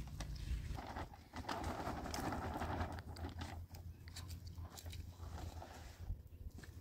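A shovel scraping and crunching through dry, stony soil for the first few seconds, then quieter rustling and clicks of a stiff plastic tarp being pulled over a shelter.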